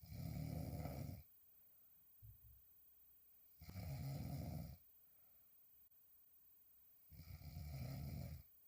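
A woman snoring while sleeping on her back: three snores, each about a second long, roughly three and a half seconds apart.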